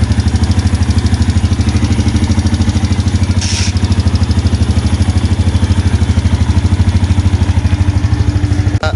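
Yamaha Jupiter Z1's single-cylinder four-stroke engine idling steadily while hot, with a ticking from the front of the engine that the mechanic traces to exhaust valve clearance gone out of adjustment.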